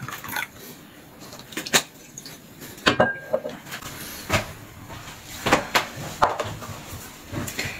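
Light clicks and knocks of tableware being handled on a dining table, such as glasses, cups and a bottle being set down, about nine sharp taps spread out with pauses between them.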